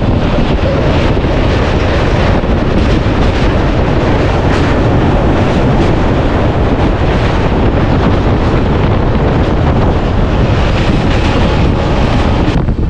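Steady, loud wind rushing over the microphone, mixed with the running noise of an LHB passenger train moving at speed across a steel truss bridge.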